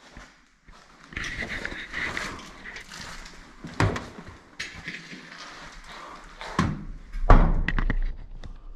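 Rustling and scraping noises broken by a few sharp knocks, the loudest a heavy thud about seven seconds in.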